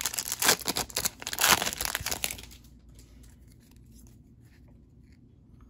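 Foil Yu-Gi-Oh booster pack wrapper crinkling loudly as it is torn open, for about two and a half seconds. After that, only faint soft ticks as the stack of cards is handled.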